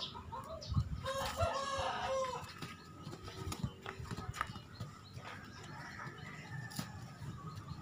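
Rooster crowing once, about a second in, with chickens clucking around it and a few dull thumps.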